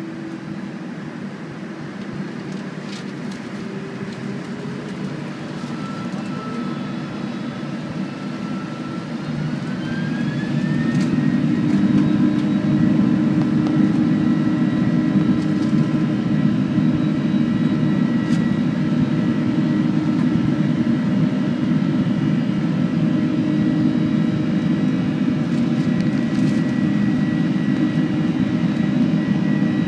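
Boeing 747-400's GE CF6 turbofans heard from inside the cabin, spooling up to takeoff thrust: a whine rises in pitch and the engine noise grows much louder about ten seconds in, then holds as a steady loud roar during the takeoff roll.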